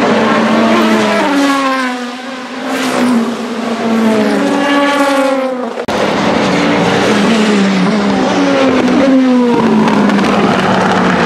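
Racing car engines at high revs through a corner, the pitch sliding down and jumping back up again and again through gear changes. About halfway through, the sound cuts abruptly to the Vanwall Vandervell 680 hypercar's Gibson GL458 4.5-litre V8, stepping through the gears again before holding a steady note as it passes.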